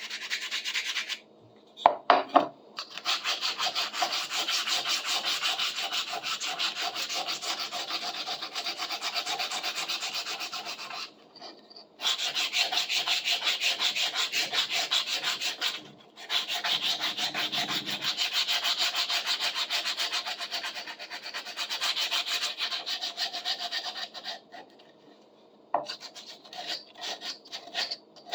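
Sandpaper rubbed by hand over a wooden saw handle in quick back-and-forth strokes, about three or four a second, in long runs broken by short pauses. A couple of sharp knocks about two seconds in.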